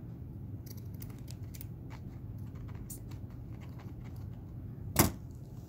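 Scissors snipping through paper and card: a run of small crisp snips, then one louder snap near the end, over a steady low hum.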